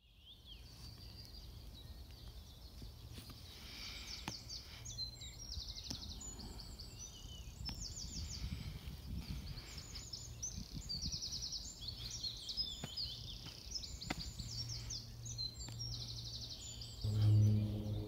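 Outdoor birdsong from several small birds, mostly quick trilled phrases, over a low steady hum. Near the end, background music with a sustained low drone fades in.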